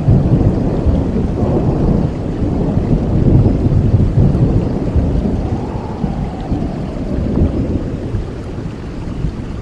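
Rolling thunder: a deep, continuous rumble that swells and subsides, heavier in the first half and easing toward the end.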